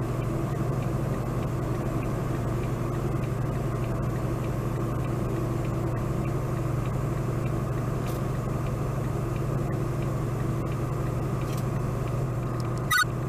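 Steady engine and road drone inside a moving semi truck's cab, low and even. A short high-pitched sound cuts in briefly near the end.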